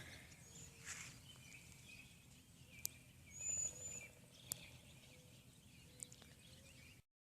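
Quiet early-morning lakeside ambience with faint bird chirps and one short high whistle from a bird about three and a half seconds in, plus a few faint clicks; the sound cuts off abruptly near the end.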